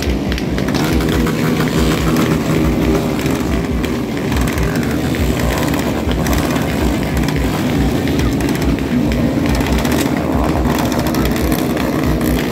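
Several motorcycle engines running together, their pitch rising and falling as riders rev through wheelies.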